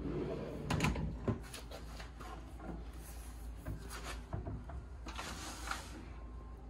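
Wooden desk drawer and hinged cabinet door being handled: a couple of light wooden knocks about a second in, then soft rubbing and sliding later on.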